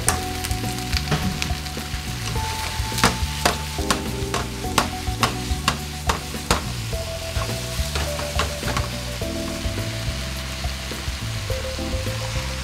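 Broccoli, chicken and carrot sizzling in a frying pan while being stirred and tossed with wooden chopsticks, with a run of sharp clicks from about three to seven seconds in.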